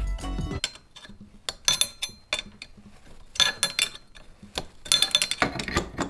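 Metal clicks and ringing clinks of a wrench working nuts on steel bolts, a few sharp clinks standing out between quieter ticks. Background music drops out about half a second in and returns near the end.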